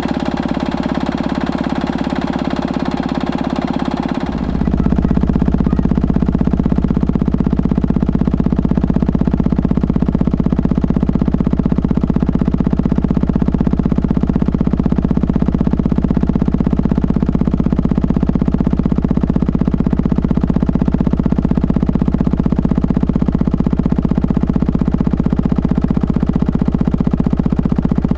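Stuart Turner H1 stationary engine running steadily with a rapid even beat, unloaded. About four seconds in the sound abruptly becomes louder and deeper.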